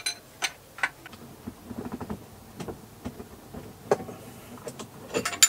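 Irregular small metallic clicks and knocks of a spanner working a banjo connector on the inboard diesel's fuel line, tightening it about a quarter of a turn to stop a diesel leak. The loudest knocks come near the end.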